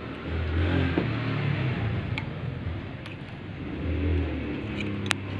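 A motor vehicle engine revving up and easing off in two swells, with a sharp click near the end.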